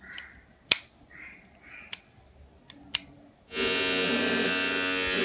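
A few sharp clicks, then about three and a half seconds in a Panasonic battery hair trimmer's motor starts and runs with a steady buzz.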